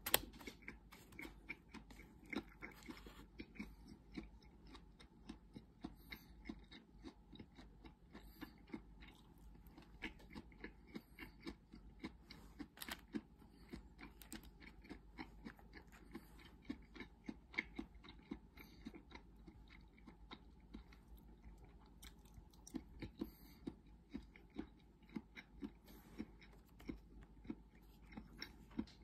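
Quiet, close chewing of a person eating, a steady run of small wet clicks, a few a second, with light taps of chopsticks on the plastic bento tray.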